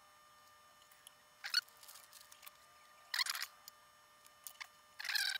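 Faint, short rustles and clicks, three or four in all, from fingers handling small resistors and their wire leads.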